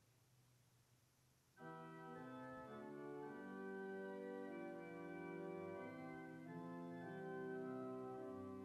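Organ music: after a brief pause, the organ comes back in about a second and a half in with full, held chords that move slowly from one to the next.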